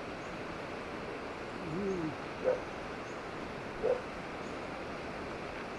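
An animal calling: one short call that rises and falls in pitch, then two short sharp calls about a second and a half apart, over a steady noisy background.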